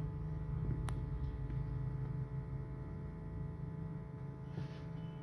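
Steady low hum with faint steady tones above it, and a single sharp click about a second in.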